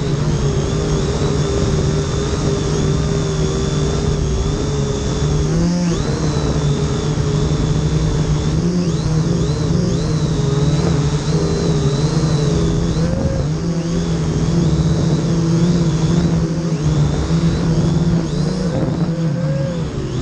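Huanqi H899b quadcopter's motors and propellers buzzing right at the microphone, their pitch wavering up and down as the throttle shifts. Wind rumbles on the microphone underneath.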